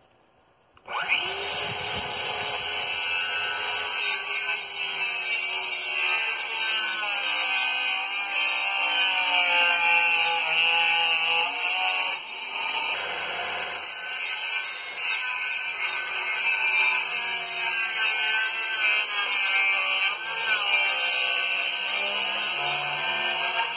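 Electric power saw cutting wooden triangular brace plates, starting about a second in. The motor whine dips and recovers in pitch as the blade takes load in the wood.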